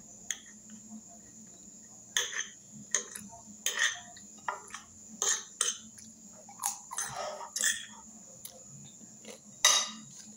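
Metal fork clinking and scraping against a glass bowl, a dozen or so short, irregular clicks, the loudest one near the end.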